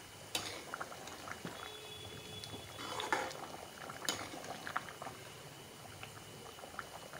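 Thick potato curry gravy simmering in a steel kadhai, bubbling with many small soft pops, and a few light clinks of a metal ladle against the pan as it is stirred, notably about a third of a second in and about four seconds in.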